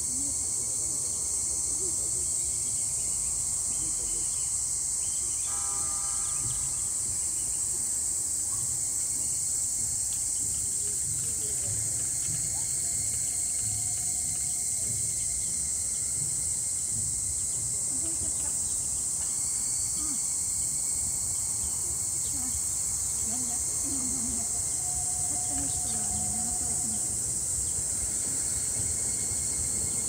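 Steady high-pitched chorus of insects in the summer grass, over a faint low rumble.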